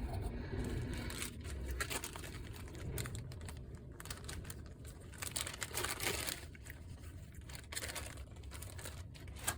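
Irregular light clicks, rustling and scraping of hands working on the opened PlayStation 5 during its thermal paste service.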